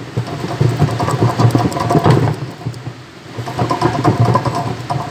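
A motor running with an uneven, pulsing hum that eases off about two and a half seconds in and comes back about a second later.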